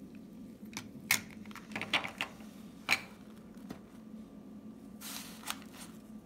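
Clear plastic coin capsules holding 1 oz silver coins clicking and clacking against each other and the table as they are handled and stacked. The sharpest clicks come about one and three seconds in, and a brief sliding rustle with a few more clicks follows about five seconds in.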